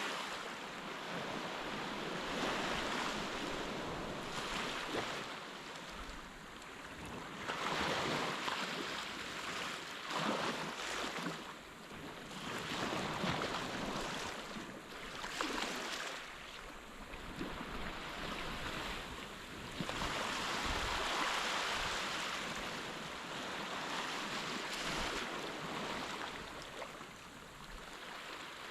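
Gentle surf breaking and washing on a sandy beach. The hiss of the water swells and fades every few seconds.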